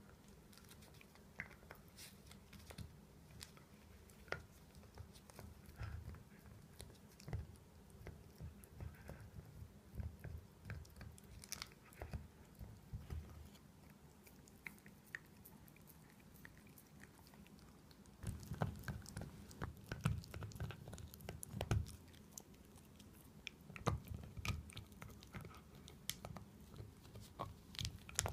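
Miniature dachshund gnawing a dental bone chew toy held in its front paws: irregular clicks and crunches of teeth on the toy, getting louder and busier about two-thirds of the way through.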